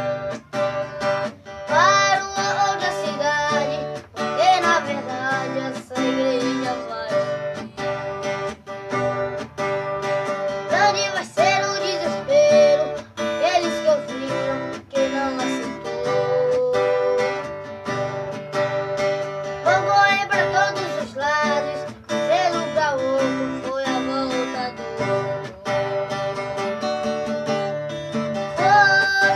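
A song in Portuguese: acoustic guitar strumming steadily, with a voice singing a wavering melody over it in several phrases.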